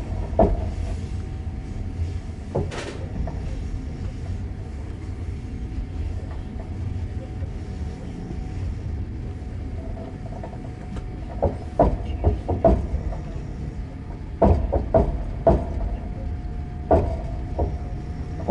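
Passenger train running on the rails, heard from inside the carriage: a steady low rumble with a faint steady whine, and sharp wheel clacks over rail joints that come in groups of several about 11 to 17 seconds in.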